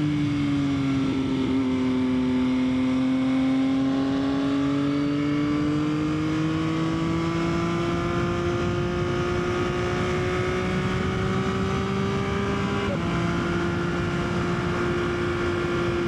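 Yamaha XSR900's three-cylinder engine pulling steadily under way on a mountain road. The engine note sags slightly, then climbs slowly. About thirteen seconds in it steps down a little at a gear change, over a constant rush of noise.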